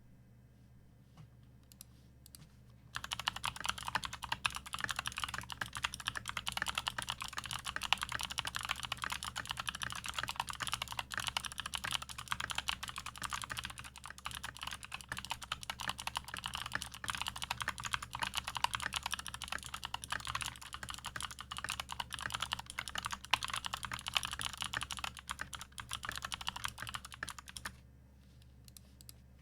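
Continuous fast typing on a GMMK TKL mechanical keyboard with lubed Kailh Speed Bronze switches and thick dye-sub PBT keycaps. It starts about three seconds in and stops shortly before the end.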